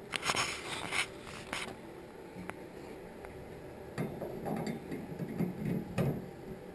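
Metal shower handle handled against the brass cartridge stem of a shower valve: rustling and scraping at first, then a few sharp clicks and low knocks as the handle is fitted onto the stem.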